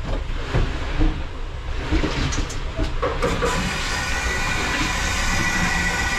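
A few knocks and clicks. Then, about three seconds in, a Hoshizaki commercial ice maker starts its one-minute fill cycle: the inlet water valve opens and water rushes through with a steady hiss and a thin high whine.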